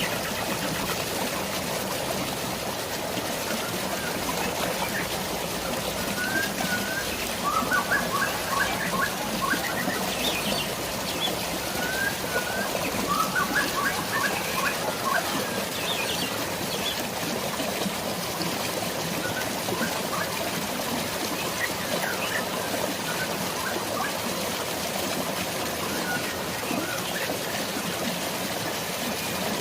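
Steady rush of flowing water, with birds chirping in short repeated phrases over it, busiest in the middle.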